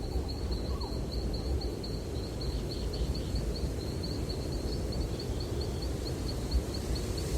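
Outdoor nature ambience: a steady low rumble of breeze with an even run of short, high chirps, about five a second.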